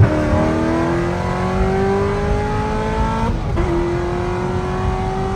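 Car engine accelerating hard, its revs climbing steadily, dropping briefly at a gear change about three and a half seconds in, then climbing again.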